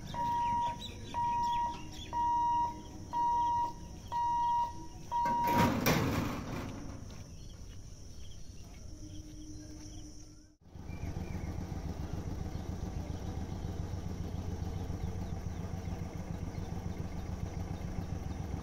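Level-crossing warning hooter beeping a steady single tone about one and a half times a second, stopping about five and a half seconds in, followed by a brief loud rush of noise. Later comes a steady low engine rumble of road vehicles idling at the closed gate.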